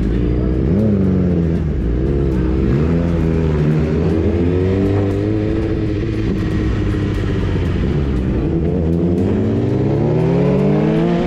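Sport motorcycle engine heard from the rider's seat, pulling away at low speed with the revs rising and falling a few times, then climbing steadily in pitch as the bike accelerates near the end.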